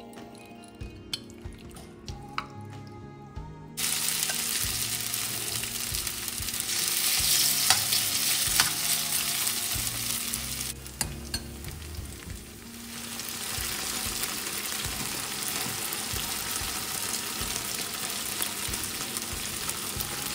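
Chicken pieces frying in hot oil in a stainless steel skillet: a steady sizzle that starts abruptly about four seconds in and briefly dips in the middle. Before it, a few light clinks of a spoon stirring sauce in a small glass bowl.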